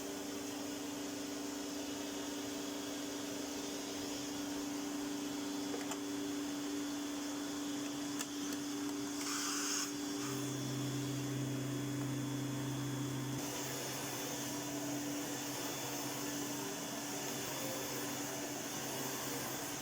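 1988 Electrolux 612 upright vacuum cleaner running steadily, a constant motor hum with airflow hiss. About nine seconds in there is a brief hiss, and a lower hum joins for a few seconds before the sound settles back.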